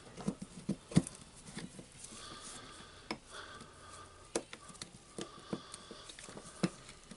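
Scattered light clicks and knocks as the parts of a Milwaukee M18BPD cordless drill are handled and fitted back together during reassembly. The loudest knock comes about a second in.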